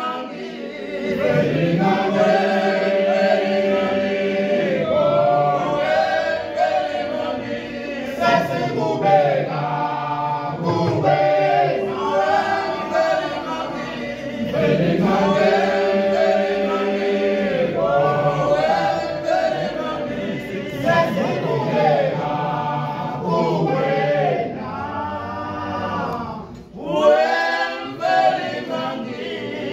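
Male a cappella choir singing in the Zulu isicathamiya style, many voices in close harmony over a strong low part. They pause briefly near the end, then come back in loudly.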